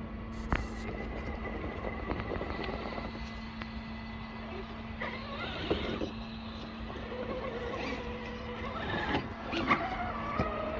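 Vanquish VS4-10 Origin scale RC crawler working over rocks and roots: its electric motor and gears whine, rising and settling with the throttle. Sharp knocks and scrapes come from the tyres and chassis on the rock.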